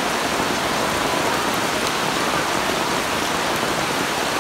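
Steady rain falling on shallow standing water and wet ground.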